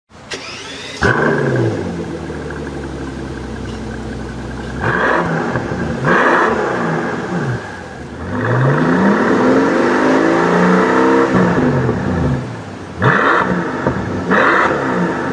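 Mercedes-Benz S65 AMG's twin-turbo V12 revving through its exhaust in a series of short, abruptly cut clips: quick blips about one, five and six seconds in, a longer rev that climbs and falls back between about eight and twelve seconds, then two more blips near the end.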